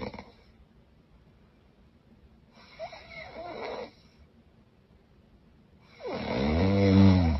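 A woman snoring. A softer snore comes about three seconds in, then a loud, pitched snore near the end that rises and falls.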